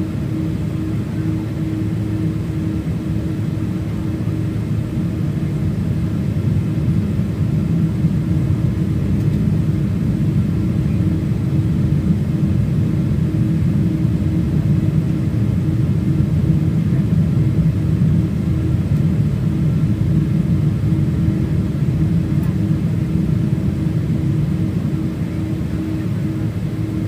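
Cabin noise of an airliner taxiing, heard from inside the passenger cabin: a steady low rumble with an even hum running through it, growing a little louder through the middle.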